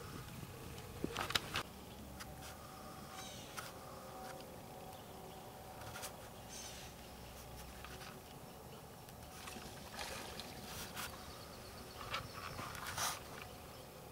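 Scattered soft rustles and clicks over a quiet outdoor background, the sharpest about a second in and again near the end.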